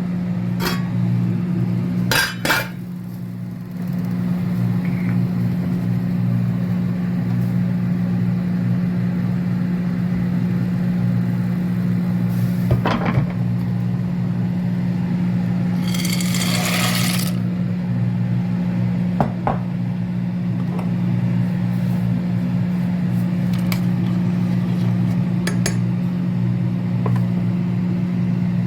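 Dishes and utensils clinking and knocking now and then during kitchen food preparation, over a steady low hum. A brief rushing noise comes a little past halfway.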